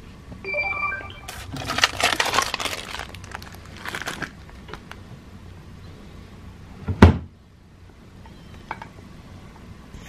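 Close handling noise as small plastic baby-supply items are moved about: rustling and clattering for a few seconds, a few short beep-like tones near the start, then one loud thump about seven seconds in.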